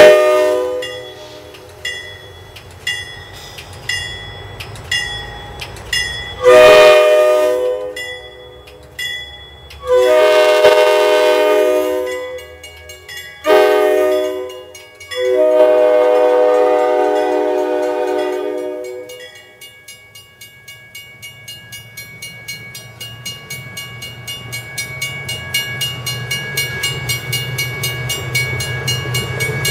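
MARC push-pull train passing behind its lead cab car, whose K5LA air horn sounds one short blast and then three long blasts, loud. Before the horn, short ringing tones repeat about once a second; after it, the wheels click over the rail joints faster and faster with a growing rumble as the passenger cars go by.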